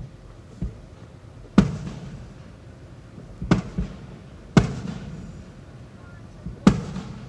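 Aerial fireworks bursting: about six sharp booms spread over the seconds, the loudest about a second and a half in, each trailing off in a low rumble.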